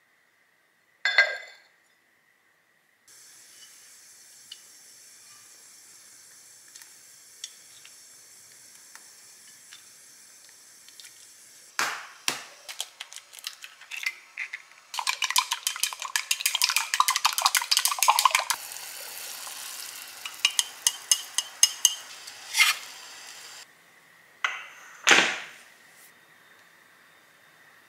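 Kitchen dish sounds: a lid set down with a sharp clink on a stoneware bowl about a second in, then a couple of knocks and an egg beaten fast in a glass mug, a dense run of quick clicks lasting about three and a half seconds. Near the end a loud clunk of a pot or dish being set down.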